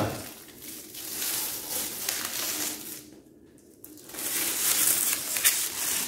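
Clear plastic protective wrap crinkling and rustling as it is pulled by hand off a new speaker cabinet, in two spells with a short pause about three seconds in.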